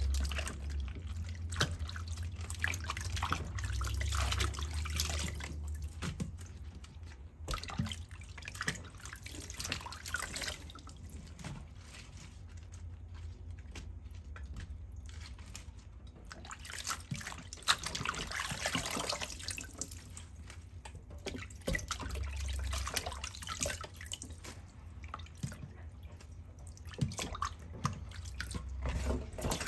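Water splashing, sloshing and dripping as bok choy is rinsed by hand in a plastic basin of water in a stainless steel sink and lifted out into a plastic colander, with irregular splashes and drips throughout. A low hum sits underneath.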